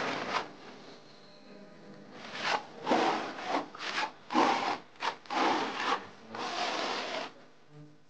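A hand tool scraping over a freshly plastered wall in repeated strokes, about eight of them, each a fraction of a second to about a second long, with a pause before the strokes resume.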